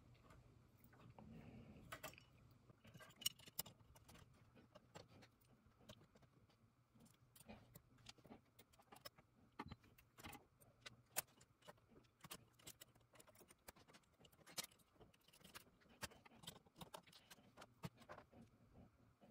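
Faint, irregular small clicks and rattles of the Aiwa AD-3150 cassette deck's sheet-metal tape mechanism being handled and turned over by hand.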